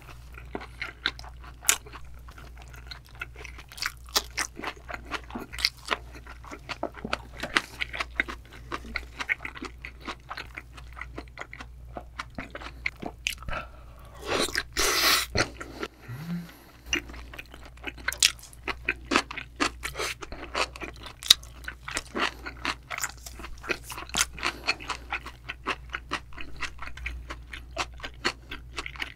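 Close-miked chewing of raw yellowtail sashimi with fresh vegetables: wet, crunchy mouth sounds with many small clicks. A louder burst comes about fourteen seconds in as another bite goes in.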